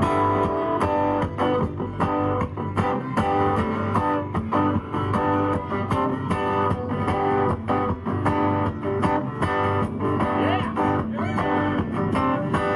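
Live country band playing instrumentally: strummed acoustic guitars with electric guitar and bass guitar, in a steady rhythm.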